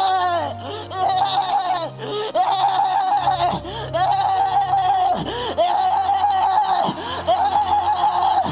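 A woman's voice close to a handheld microphone, making loud, repeated high-pitched laughing cries, about seven drawn-out ones, one every second or so. It is an outburst during deliverance prayer, which the preacher takes for an evil spirit manifesting and addresses as a snake.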